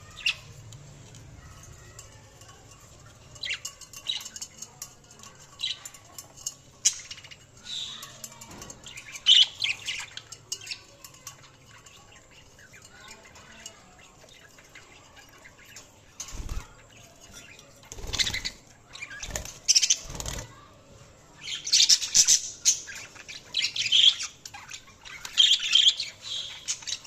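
Budgies chirping and chattering in short bursts, sparse at first and busier in the last third, with a few low thumps about two-thirds of the way in.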